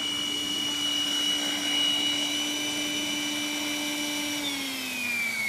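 Protos 500 electric RC helicopter's motor and rotor running with a steady high whine. About four and a half seconds in, the pitch starts to fall as the rotor spools down after landing.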